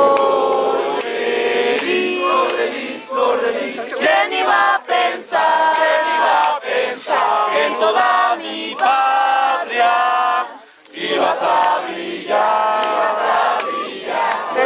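A group of people singing a song together, with a short break about ten and a half seconds in before the singing resumes.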